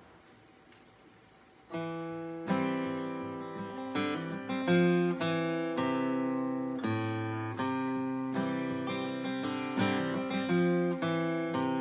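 Acoustic guitar strummed in a steady rhythm, each chord ringing out. The first chord comes nearly two seconds in, after a near-silent pause.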